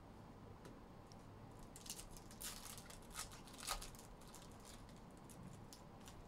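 Foil wrapper of a Topps Chrome Formula 1 trading-card pack being torn open and crinkled: a few quick, faint crinkly rustles starting about a second and a half in.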